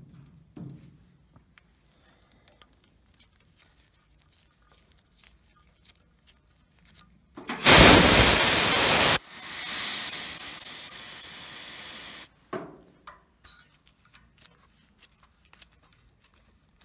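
Compressed oxygen hissing out of a Victor oxygen regulator as gas is let out of the line. There is a sudden loud blast of about a second and a half, then a quieter steady hiss for about three seconds that cuts off sharply.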